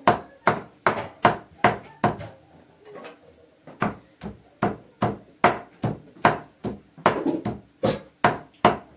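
Cleaver chopping raw meat on a thick wooden chopping block, mincing it with steady strokes about two or three a second, with a pause of about a second and a half near the middle.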